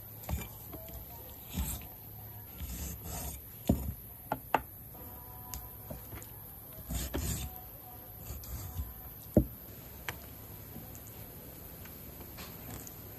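Kitchen handling sounds of a knife cutting raw chicken legs on a wooden chopping board: irregular sharp knocks and taps with soft thuds and rubbing between them, the loudest knock about nine seconds in.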